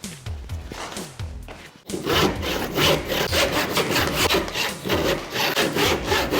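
Hand saw cutting through wood in fast back-and-forth strokes, starting after a sudden cut about two seconds in. Synth music plays underneath before the sawing starts.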